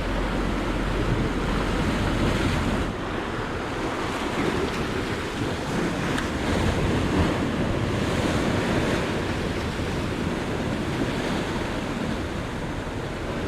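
Sea surf washing against offshore rocks: a steady wash of wave noise. Wind rumbles on the microphone for about the first three seconds.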